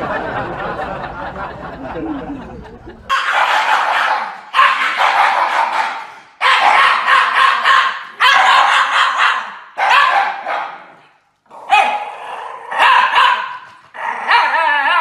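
Two Shiba Inus howling together in a string of short calls, about a second each with brief gaps, wavering in pitch near the end. Before the howling starts, about three seconds in, there is a muffled, noisy stretch.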